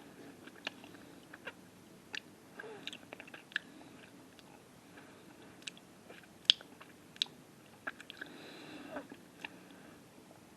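A mint candy being chewed close to the microphone: irregular small crunches and clicks in the mouth.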